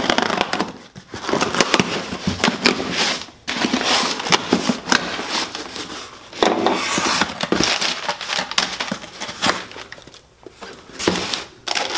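Packing tape on a cardboard box being cut and torn open and the cardboard flaps pulled back, then crumpled brown kraft packing paper crinkling and rustling as it is pulled out, with many sharp crackles.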